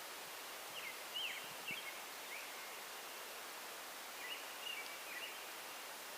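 A small bird chirping in two short runs of quick, high notes, over a steady outdoor hiss.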